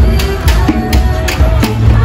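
Loud dance music played over a sound system, with a steady drum beat and heavy bass.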